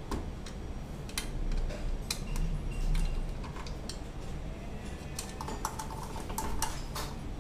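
Irregular metallic clicks and clinks of a hand tool working the cover screws of a manual guillotine paper cutter, a few of them ringing briefly near the end.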